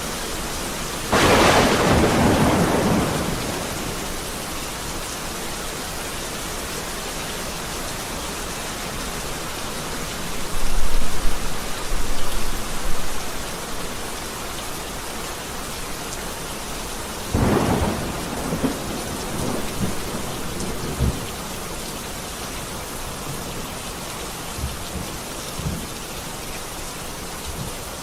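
Heavy rain falling steadily, with thunder: a sharp crack about a second in, the loudest deep rumbling about ten seconds in, another crack a little past halfway followed by rolling rumbles, and fainter rumbles near the end.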